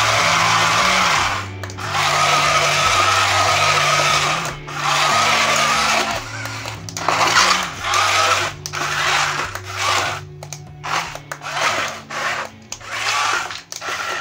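Small yellow DC gear motors of a cardboard robot running as it spins on its wheels, with a brief cut-out twice and then a string of quick stops and restarts in the second half.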